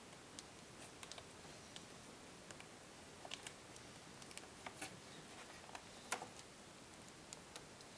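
Faint, scattered small clicks and ticks from fingers working a laptop display cable's connector into its socket on the back of an LCD screen, over a low hiss; the sharpest tick comes about six seconds in.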